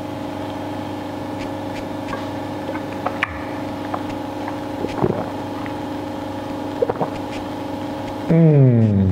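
Steady mechanical hum of brewery equipment, with a few faint clicks, then near the end a man's long, falling 'mmm' of appreciation after tasting the beer, the loudest sound here.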